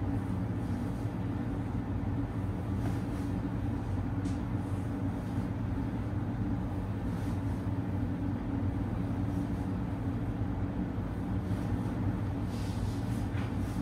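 Steady low hum that does not change, with a few faint soft ticks over it.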